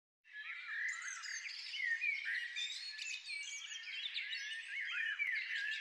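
Songbirds chirping and singing, many short whistled calls overlapping.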